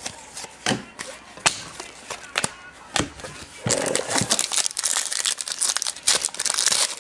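Trading cards and a card-pack wrapper being handled: a few sharp clicks as cards are handled, then from about halfway a wrapper is torn open and crinkled.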